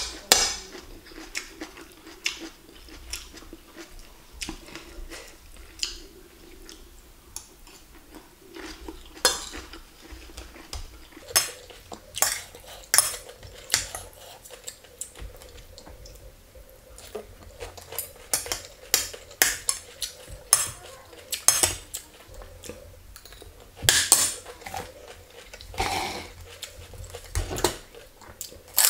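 Metal spoon and fork clinking and scraping against a plate at irregular intervals as food is scooped up, with busier runs of clinks in places.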